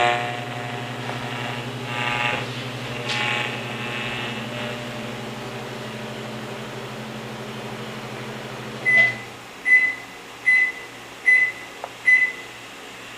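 Microwave oven running with a steady hum that stops about nine seconds in, followed by five short high-pitched beeps about a second apart signalling the end of its cycle.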